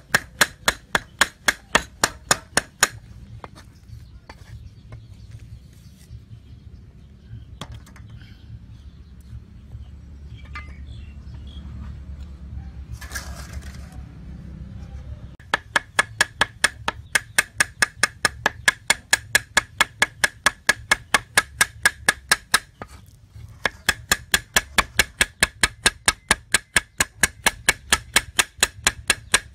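Cleaver chopping and mincing food on a round wooden chopping block: rapid, even strikes for about three seconds, then a long pause with only a low steady hum, then two long runs of steady chopping separated by a short break.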